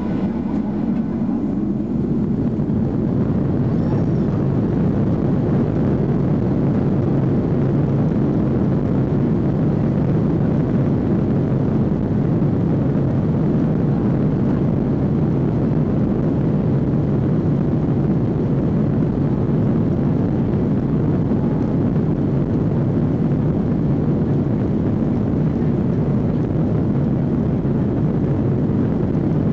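Boeing 737-800 heard from inside the cabin on its takeoff roll: the CFM56-7B engines at takeoff thrust with runway rumble, a loud steady noise that grows a little about one to two seconds in and then holds.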